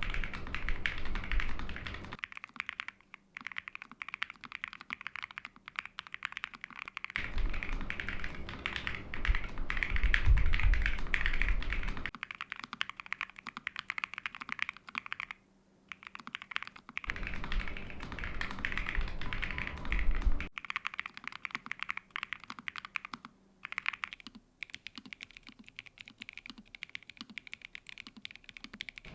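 Typing on a Nuphy NOS75 low-profile mechanical keyboard with Gateron N1 Nano switches on an aluminium plate: a steady stream of clacking keystrokes. Some stretches of the typing are deeper and fuller, others lighter and thinner.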